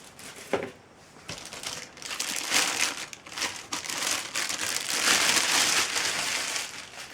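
Packaging crinkling and rustling as it is handled and unwrapped, in irregular surges that grow busier from about two seconds in.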